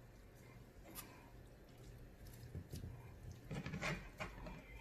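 Faint, scattered clicks and rubbing of a metal carving fork in a skillet as zucchini noodles are twisted up, most of them in the second half.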